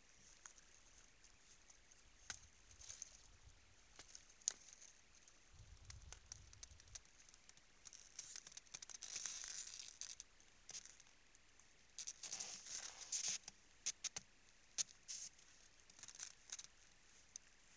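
Moose feeding at a salt lick in snow: faint, irregular crunching, scraping and clicking as they lick and gnaw the salty ground, with denser stretches of crunching about nine and twelve seconds in.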